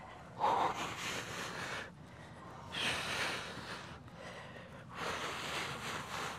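A man breathing heavily: three long, noisy breaths about two seconds apart.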